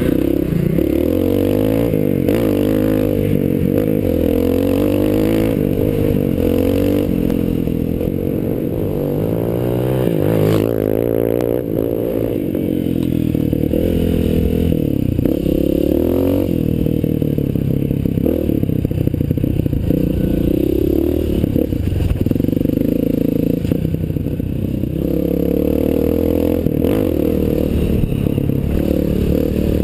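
Honda CRF230's single-cylinder four-stroke engine running under load. Its pitch rises and falls over and over as the rider opens and closes the throttle along a dirt trail. Rattling and scraping from the bike on the rough ground runs underneath.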